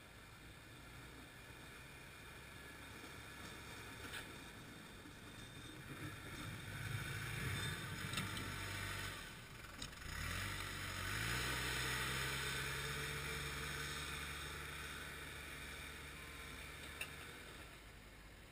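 Diesel engine of a snow-plowing loader working, growing louder, dipping briefly, then revving up with a rising pitch about ten seconds in and slowly easing off. A few short knocks sound over it.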